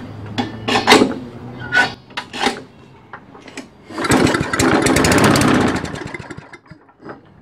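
A few knocks, then about four seconds in the Tecumseh mower engine fires on a single pull of the recoil starter and runs for about two seconds on a shot of starter fluid before dying out. Running and dying like this shows the engine has spark and compression; it dies because there is no fuel in the tank.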